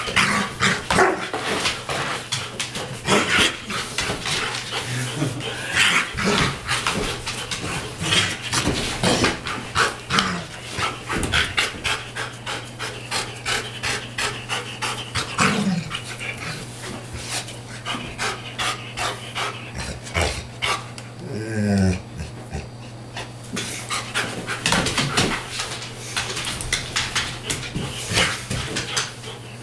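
Large shaggy dog panting hard and fast from exertion while wrestling, with a few short vocal sounds along the way. A steady low hum sits underneath.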